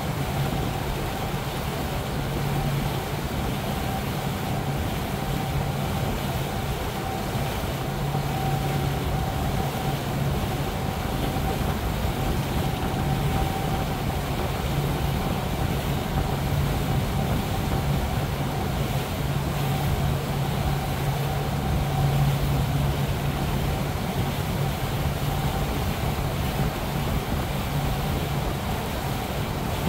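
Regal powerboat's engine running steadily under way: a low, even drone with a fainter higher whine, over the rush of wind and water.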